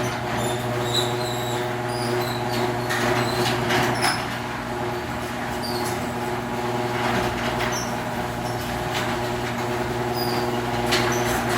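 Genie screw-drive garage door opener running the door, a steady motor hum with scattered light clicks, switching on right at the start. Its screw rail is freshly greased with low-temperature grease, which has quieted the opener's earlier noise.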